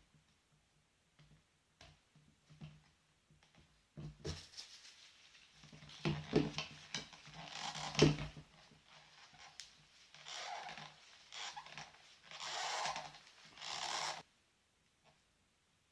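Hands handling small plastic drone parts: a few light clicks, then several seconds of rustling and scraping with one sharp click about eight seconds in.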